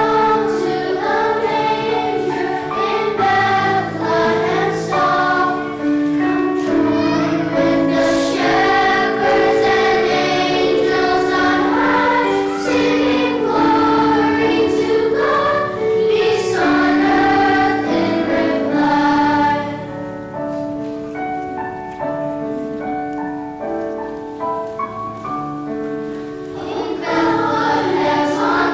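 Children's school choir singing a Christmas song with piano accompaniment. About two-thirds of the way through the voices drop out for a short piano passage, then come back in near the end.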